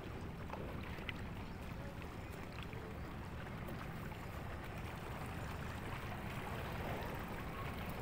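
Steady seaside ambience: a low rumble of wind and water from the bay, with a few faint ticks.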